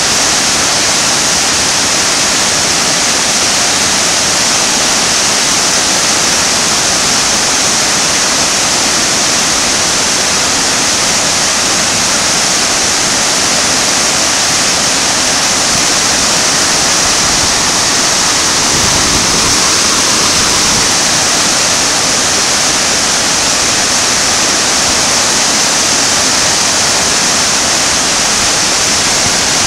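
Whitewater rapids and a waterfall rushing steadily: a loud, even wash of churning water that never lets up.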